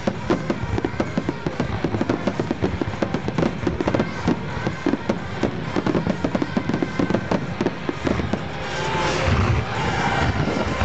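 Fireworks display: a rapid, continuous barrage of aerial shell bursts, many bangs a second overlapping one another. Near the end the bangs merge into a louder, denser rush of noise.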